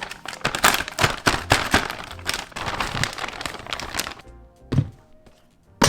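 Packaging being handled and torn open, a dense run of crinkling, crackling clicks that thins out after about four seconds, over background music.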